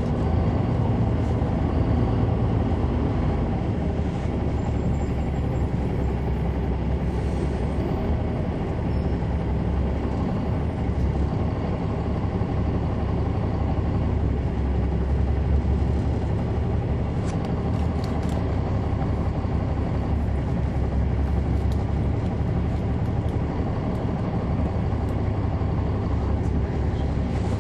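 Caterpillar C9 ACERT inline-six diesel of a 2003 Neoplan AN459 articulated transit bus, heard from on board, running with a steady engine hum.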